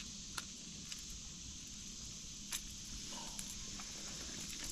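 Steady faint outdoor hiss with a few short sharp clicks, about half a second in and again about two and a half seconds in, as a caught smallmouth bass and its lure are handled over a landing net.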